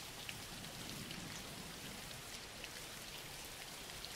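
Steady rain falling: an even hiss with a few faint drop ticks scattered through it.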